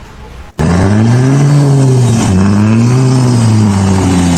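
An engine revving up and down in two smooth swells, loud and steady in between, starting suddenly about half a second in.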